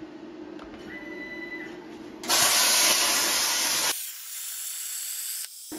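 Hynade CUT60DN plasma cutter on a CNC table, its arc and compressed air hissing loudly as it cuts a bracket from metal plate, starting about two seconds in. About four seconds in the hiss drops to a quieter, thinner hiss. A short steady tone sounds about a second in, before the cut.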